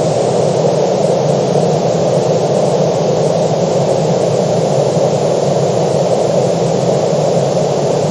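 Steady, even rushing noise, unchanging throughout, deepest and fullest in the low-middle range.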